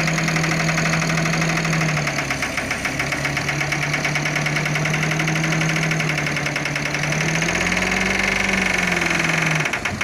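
Dump truck's diesel engine running steadily with a fast knocking clatter, working under load as the hydraulic hoist raises the loaded bed. Its pitch dips briefly about two and a half seconds in, then rises and falls again near the end.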